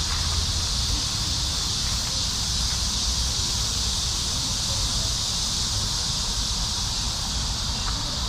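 Steady, high-pitched buzzing chorus of cicadas in summer trees, unbroken throughout, over a low rumble.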